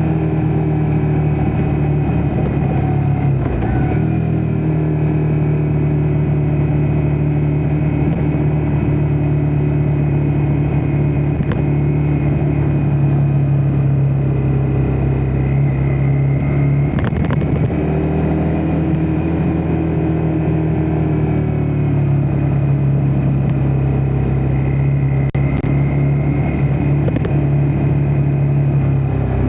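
Ducati Multistrada V4 S's 1158 cc V4 Granturismo engine running at a steady engine speed. The note dips briefly about three and a half seconds in and again around seventeen seconds in.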